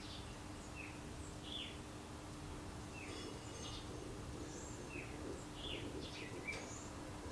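Birds chirping, short falling calls a few times a second, over a faint steady hum.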